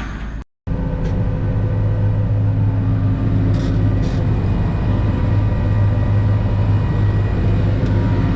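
Tractor engine running at a steady speed with a constant low drone, after a brief cut about half a second in.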